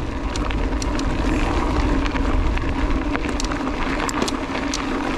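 Scott Genius mountain bike rolling fast over a gravel fire road: tyre noise with a steady hum and many small ticks of grit, and wind rumbling on the camera's microphone.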